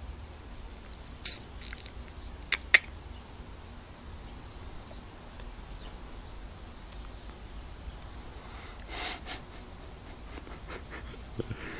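Labrador retriever puppy making a few short, high squeaks that fall in pitch about a second into the sound, then a short sniff about nine seconds in.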